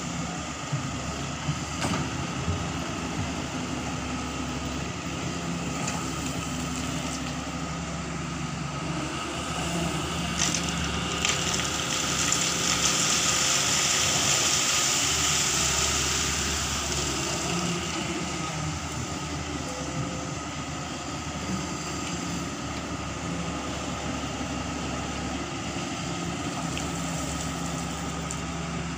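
Doosan 140W wheeled excavator's diesel engine running steadily as it digs gravel, with a few knocks of stone near the start. About twelve seconds in comes a louder rushing clatter lasting several seconds as rocks pour from the bucket into a wire gabion cage.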